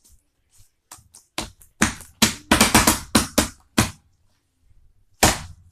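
Homemade fluffy slime being squeezed and pressed by hand, giving a quick run of about a dozen sharp wet pops and clicks over about three seconds, then one more pop near the end.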